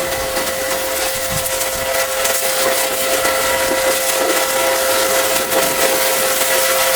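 High-pressure washer spraying: a steady hiss of the water jet over a constant whine from the washer's motor and pump.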